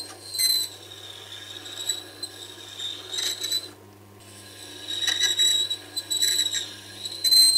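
Steel ring cutter of a Crown Revolution hollowing tool, held in a Tormek jig, grinding against a Tormek T-8's extra-fine DE-250 diamond wheel. It makes a high scraping squeal that comes and goes in several passes, over the low steady hum of the machine. The grinding is taking a rounded micro bevel off the ring's edge.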